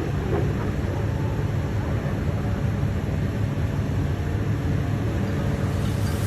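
Aircraft engine noise: a steady, heavy rumble.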